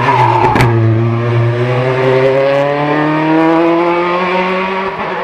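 Race car engine under load on a hill-climb course, climbing slowly in pitch through a gear and then holding steady, with a sharp crack about half a second in.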